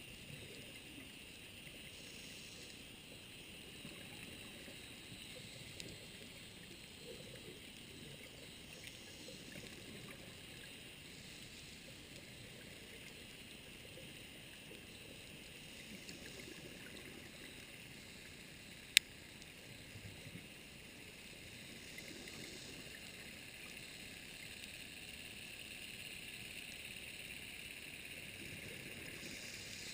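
Underwater ambience: a steady faint hiss with a low watery undertone, broken by one sharp click about two-thirds of the way through.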